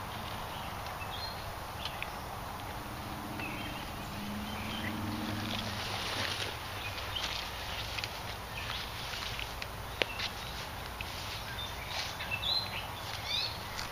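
Rustling and crackling of dry brush and grass underfoot as someone pushes through undergrowth, thicker from about halfway on, with one sharper click near the end and a few faint short high chirps.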